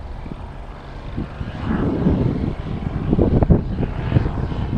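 Paramotor engine and propeller droning in the distance overhead, with wind buffeting the microphone in low rumbling gusts that get heavier about a second and a half in.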